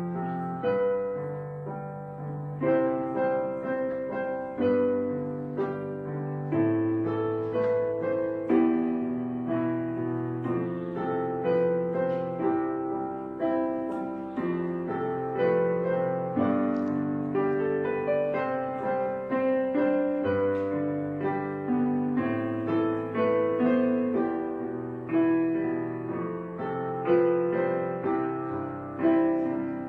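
Solo piano background music: a melody over low chords, each note struck and then fading.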